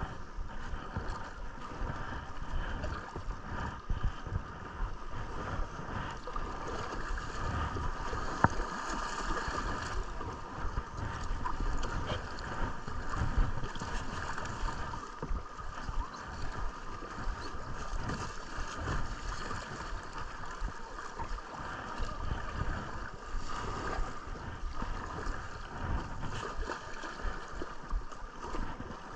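River water lapping and gurgling against a kayak, with steady low thumps of wind and movement on the GoPro's microphone. A couple of sharp knocks stand out, about eight and thirteen seconds in.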